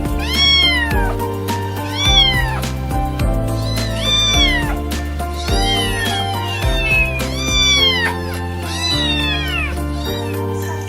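A cat meowing over and over, about seven drawn-out meows that each rise a little and then fall in pitch, over steady background music.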